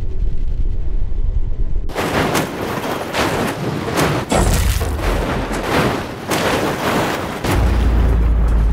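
A car with a tube roll cage crashing as it tumbles down a rocky slope. After a low rumble, about two seconds in, a run of heavy crashes of metal on gravel and rock begins, about ten hits, and near the end it gives way to a deep low boom.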